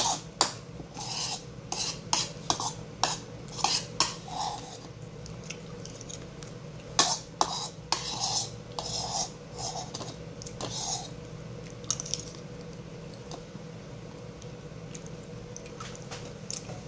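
Metal spoon clinking and scraping against a ceramic bowl, scooping up the last of the rice porridge: many quick strikes and scrapes that stop about eleven seconds in.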